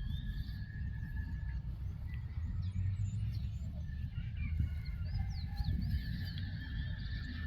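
Birds chirping and calling, many short quick calls that slide up and down in pitch, with a few longer held notes, over a steady low rumble.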